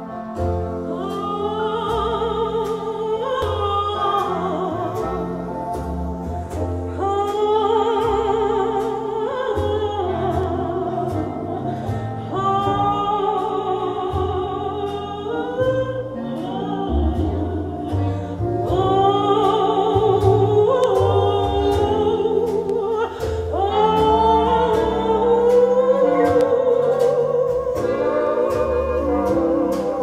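Recorded music with a sung vocal over sustained bass and a steady beat, played through floor-standing hi-fi loudspeakers and picked up in the room.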